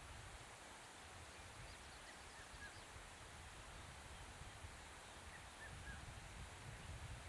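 Quiet open-country ambience: a faint, uneven low wind rumble on the microphone, with a few faint short bird chirps about two and six seconds in.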